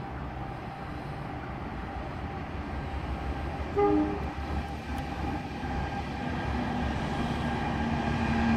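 Alco diesel locomotive of the NSW 44 class approaching a station, with a steam locomotive coupled behind. There is a short horn blast about four seconds in. The diesel's steady low engine hum then grows louder as it nears.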